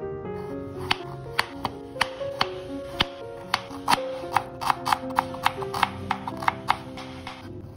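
Chef's knife slicing peeled ginger on a wooden cutting board: sharp knocks of the blade on the board, about three a second, starting about a second in. Background music plays throughout.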